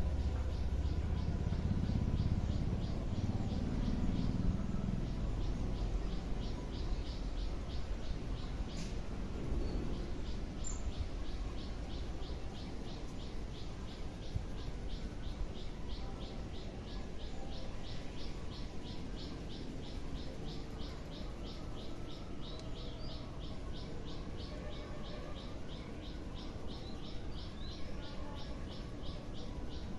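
A bird repeating one short, high chirp over and over at an even pace, about three times a second, starting about a second in. A low rumble is heard during the first few seconds.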